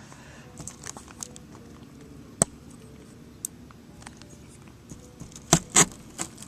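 Handling noises from fixing a paper target to a piece of cardboard with a knife: scattered light clicks, one sharp knock about two and a half seconds in, and two more close together near the end.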